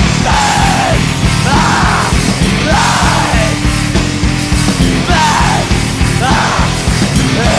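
Hardcore punk/screamo song playing loud: screamed vocal phrases about a second apart over distorted guitars and fast, dense drumming.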